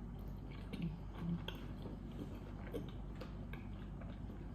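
A person chewing a bite of an egg, shrimp and sausage sandwich, with scattered small mouth clicks.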